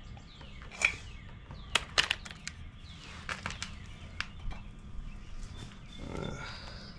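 Scattered light metallic clicks and knocks of a wheel hub's oil cap and bolts being worked loose by hand, with birds chirping faintly in the background.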